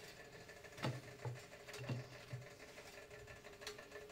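Quiet room tone with a faint steady hum and four soft low bumps, in two pairs about one and two seconds in, typical of handling noise.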